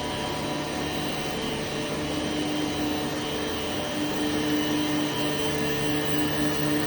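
Steady mechanical hum and whine of running plant-room machinery, such as fans or pumps, with a few held tones over an even rushing noise.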